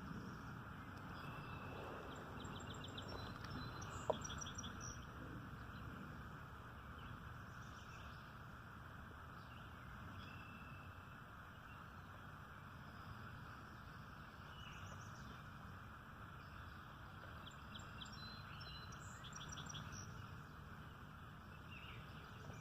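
Birds singing faintly over a steady low background hiss, with a short trilled song heard twice, once early and again near the end. A single sharp click about four seconds in.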